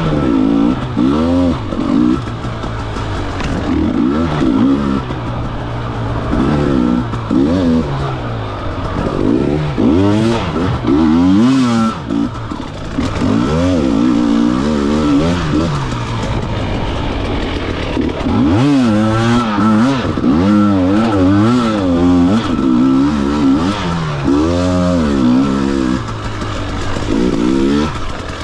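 Off-road racing motorcycle engine revving up and down over and over, the pitch climbing and dropping every second or two as the throttle is worked, with one sharp climb from low revs about two-thirds of the way through.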